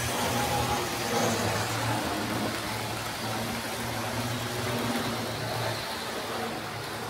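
Tri-ang Hornby 00-gauge model trains running on the layout: a steady electric motor hum with the rumble of wheels on track, the hum dropping out briefly now and then.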